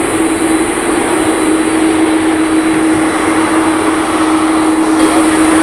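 Japan Airlines Boeing 787-9's GEnx turbofans running at taxi power close by: loud, steady jet engine noise with a constant low drone and a high hiss.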